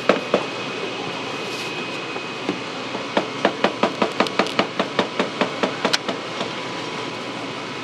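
Knife chopping fried squid on a plastic cutting board: a few chops at the start, then a quick, even run of about fifteen chops from about three seconds in to about six seconds in.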